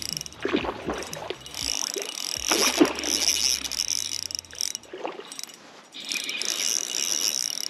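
Spinning reel rattling and clicking in quick runs as its handle is cranked against a hooked trout, the mechanism chattering in three stretches with short gaps between.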